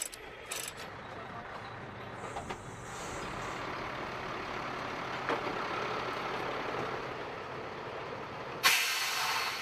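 Heavy military truck's engine running steadily, with a loud burst of hissing air near the end, like an air brake releasing. A couple of faint chain clinks are heard early on.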